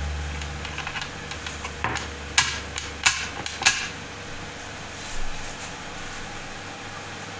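A few sharp metallic knocks, four close together in the middle and one softer one later: the steel ring knocking against its screwed-on plate and the board as the rope knotted to it is tugged. A low hum fades out in the first second.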